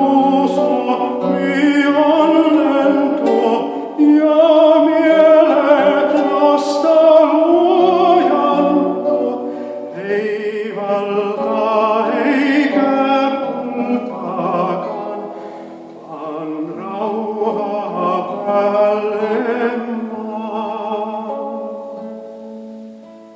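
A group of voices singing a Christmas carol in harmony. The last phrase dies away near the end.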